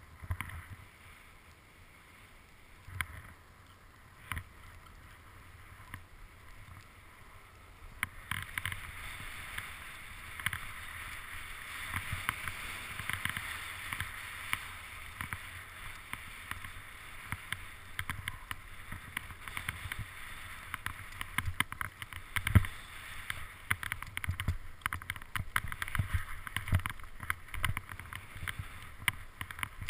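Skis sliding and scraping over snow on a downhill run: a steady hiss that starts about eight seconds in, with frequent knocks and thumps over it, one much louder about two thirds of the way through. Before the run starts there are only a few isolated knocks.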